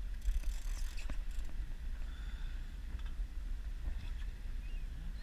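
Steady low rumble of a sportfishing boat at sea, with a brief hiss near the start and a few faint clicks.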